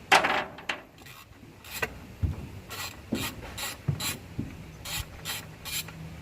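Hand ratchet worked in short strokes during an engine teardown: about eleven quick rasping ratchet strokes, the first the loudest.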